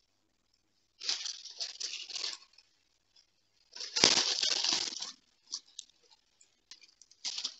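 Paper being handled, crinkling and rustling in two bursts, the second louder, with a short rustle near the end.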